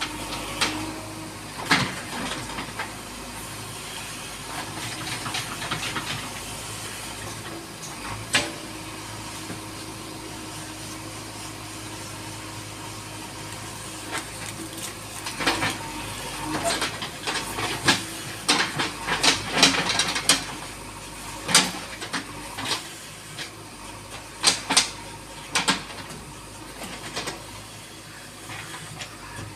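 JCB 3DX backhoe loader's diesel engine running steadily under load as it digs soil, with a hiss over a low hum. Sharp knocks and clanks stand out, a few in the first half and many in quick succession in the second half.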